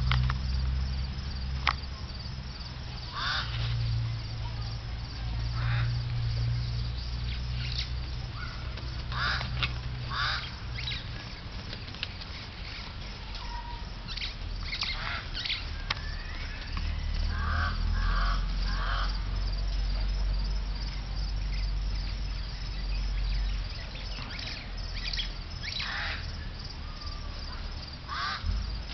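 Short honking bird calls, repeated at irregular intervals, over a steady low rumble.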